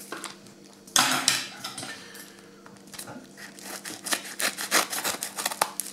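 A yellow padded plastic mailer being handled, with a loud rustle about a second in, then scissors cutting it open in a quick run of crisp snips over the last few seconds.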